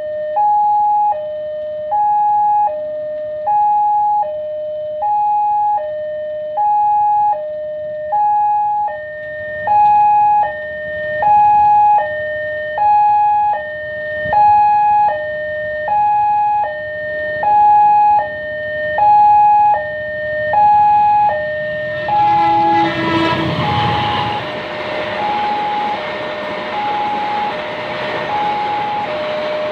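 Railway level-crossing warning alarm sounding its two-tone electronic signal, a higher and a lower tone alternating evenly, about one pair a second. About 22 seconds in, a passenger train runs across the crossing, and its loud rolling noise rises under the alarm.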